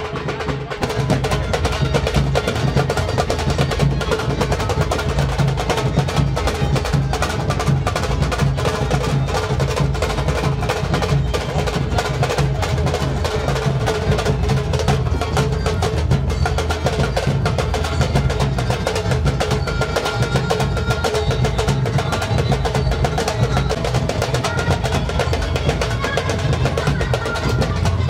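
Procession band music: fast, continuous drumming under a steady held melody. It gets louder about a second in.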